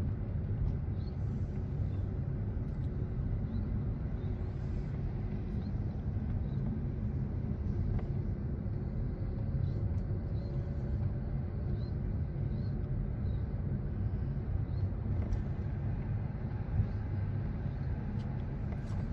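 Steady low rumble of a moving car's engine and tyres, heard from inside the cabin, with one brief knock near the end.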